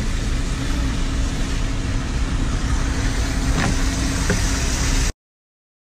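Heavy rain and strong wind, with gusts buffeting the microphone in a low rumble. The sound cuts off suddenly about five seconds in.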